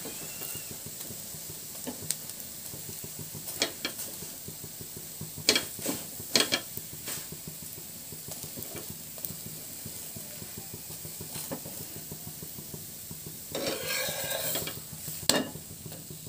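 Methi paratha sizzling in oil on a flat iron griddle (tawa) as it browns, while a steel spatula scrapes and clacks against the pan several times, pressing it down. A longer scraping rustle comes near the end.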